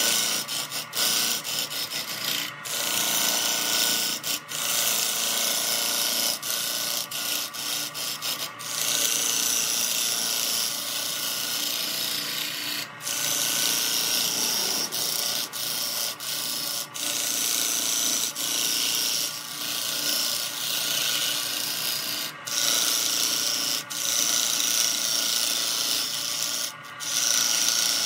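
Turning tool cutting into a large spinning wooden blank on a wood lathe: a steady hissing scrape as shavings peel off, broken by brief breaks every few seconds.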